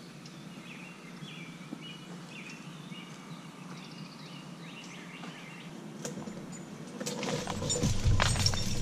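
Faint bird calls chirping over a steady low hum, then, from about seven seconds in, a louder jumble of knocks and rustling.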